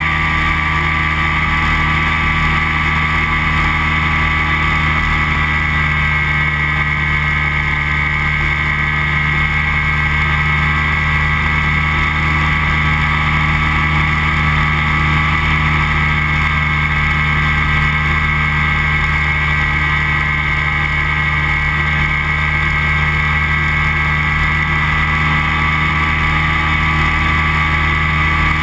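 Flex-wing microlight trike's engine and propeller running at a steady pitch in level flight.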